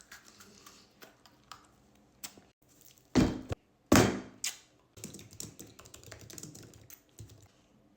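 Light clicks and taps, with two loud thumps about three and four seconds in, then a softer rustle.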